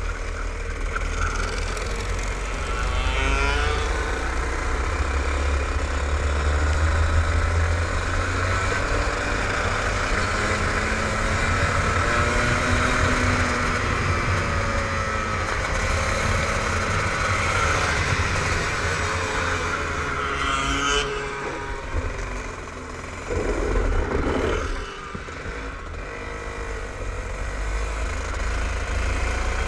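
Rotax two-stroke kart engine heard onboard at racing speed, its pitch rising and falling as the kart accelerates and lifts for corners, over a heavy low rumble of wind on the microphone. About two-thirds of the way through the engine drops back, picks up briefly, then runs quieter for a few seconds before building again.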